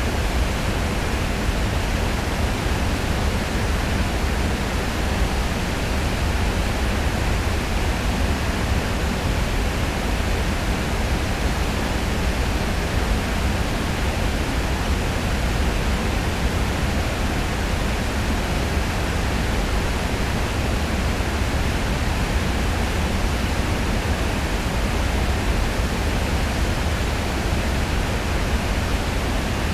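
Heavy river water pouring over a weir: a loud, steady rush with a deep rumble underneath.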